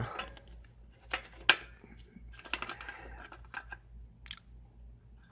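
Hands handling the Antminer S2's parts and cable: scattered clicks and light rattling of metal and plastic, with one sharp click about one and a half seconds in.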